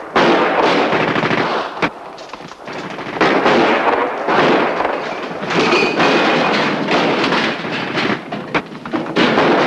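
Gunfire in a shootout: dense, rapid shots like machine-gun bursts, loud throughout apart from a quieter stretch about two seconds in, with sharp single cracks near the end.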